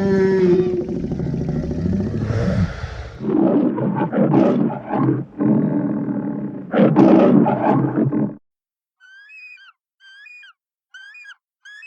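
Dinosaur roar sound effects: a long deep roar that falls in pitch, then a run of shorter growling roars, loudest about seven seconds in, cutting off suddenly at about eight seconds. After that comes a quieter series of short high chirps, about five in a row.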